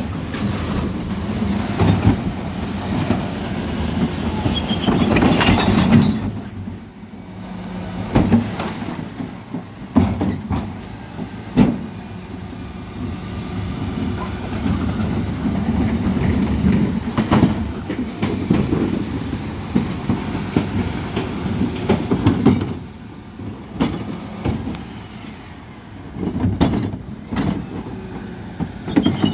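Rear-loading bin lorry (Mercedes Econic) with Terberg bin lifter and compactor working: engine and hydraulics running, with metallic clanks and rattles. Louder over the first few seconds, then quieter with sharp clanks and louder surges in between.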